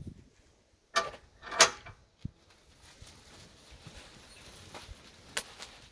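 Two short squeaks about a second in as a compression block is pushed down into the top of a flood-barrier post, then a small click and, near the end, a sharp click with a brief high metallic ring.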